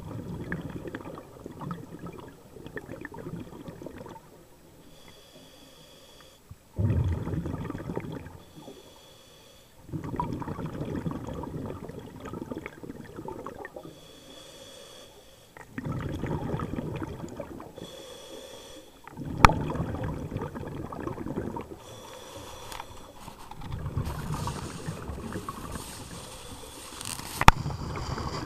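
Scuba diver breathing through a regulator underwater: a short hissing inhale through the regulator alternates with a longer rumble of exhaled bubbles, about six breaths in all. Two sharp clicks, one about two-thirds of the way in and one near the end.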